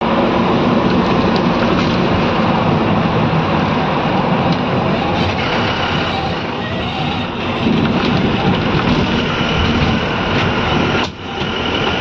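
Engine and road noise inside a moving bus: a loud, steady rumble that dips briefly about eleven seconds in.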